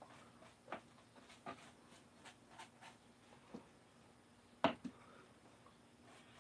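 Light scattered taps and clicks of hand painting work with a brush inside a small camper, with one sharper knock a little over four and a half seconds in, followed closely by a softer one.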